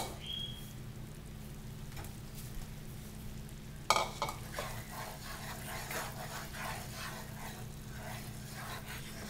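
Butter-and-cream sauce with pollock roe bubbling and sizzling in a nonstick frying pan as it reduces and thickens. A sharp knock about four seconds in, then a wooden spoon stirring and scraping through the sauce.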